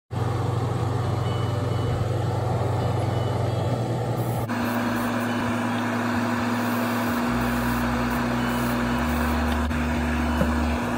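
A hobby spray booth's extraction fan runs steadily. About four and a half seconds in, a steady hum joins it along with the hiss of an airbrush spraying paint.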